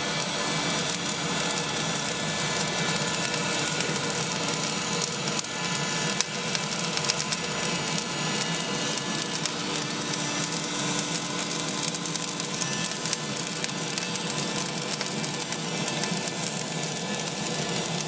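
LooftLighter electric charcoal starter blowing a steady hiss of superheated air into lump charcoal, with a faint motor hum underneath. Fine crackling comes from the charcoal as it ignites.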